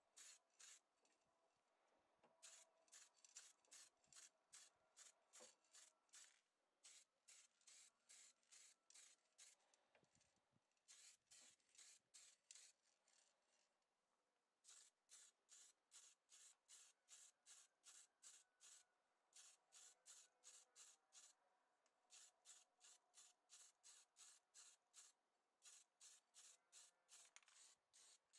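Paint being sprayed in short, rapid bursts of hiss, about two to three a second, with a few brief pauses between runs.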